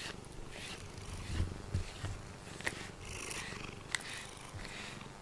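Domestic cat purring while being brushed, with the brush swishing through its fur in strokes about once a second and a couple of small clicks.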